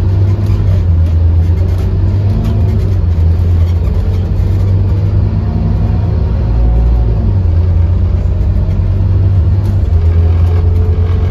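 Scania OmniCity N230UD double-decker bus's five-cylinder diesel engine heard from inside the lower deck, driving away and picking up speed: a heavy steady drone whose pitch rises and drops back a few times as it changes up through the gears.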